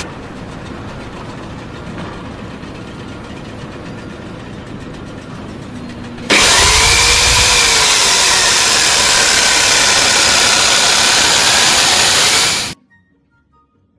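Power tool cutting stone: a steadier, quieter running for about six seconds, then loud cutting with a whine that sags and recovers in pitch under load, stopping abruptly near the end.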